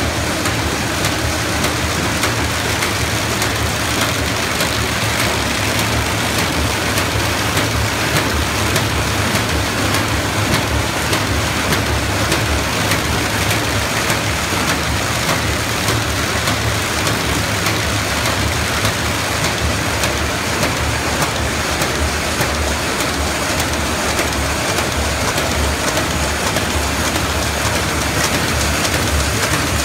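ZD-F450 square-bottom paper bag machine running: a steady, dense mechanical clatter from its rollers and bag-folding mechanism over a low hum.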